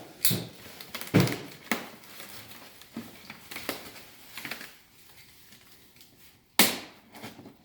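Unboxing noises from an RC airplane kit's box and packaging being handled: irregular scrapes, crinkles and knocks, the loudest about a second in and again near the end.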